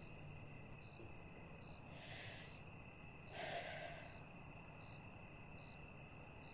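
A woman breathing out twice, a soft breath about two seconds in and a louder sigh about a second later, over quiet room tone with a faint steady high whine.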